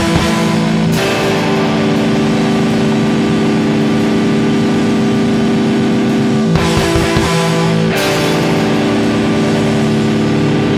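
Noise rock played loud: held electric guitar notes ringing on, with drums and two crashing washes of cymbals, one near the start and another about six and a half seconds in.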